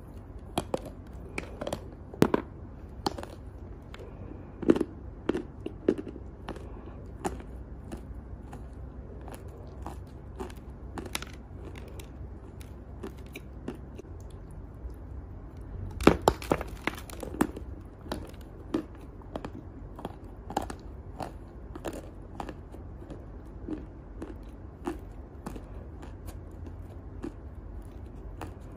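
A lump of chalk being bitten and chewed close to the microphone: sharp, irregular crunches and crackles, with a loud cluster of crunches about halfway through as a fresh piece is bitten off.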